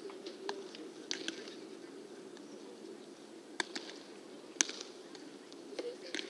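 Baseballs popping into leather gloves during a game of catch: about half a dozen sharp pops at irregular intervals, the loudest about two-thirds of the way through.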